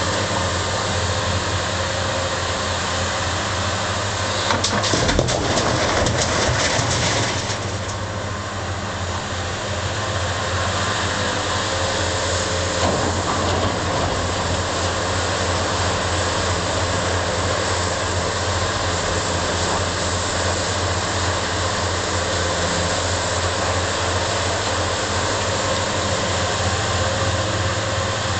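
Large diesel engines of a Hitachi hydraulic excavator and a Komatsu 405 rigid dump truck running steadily in a steady low drone. About five seconds in, a couple of seconds of rattling and clattering, the loudest part, as the excavator works blasted rock.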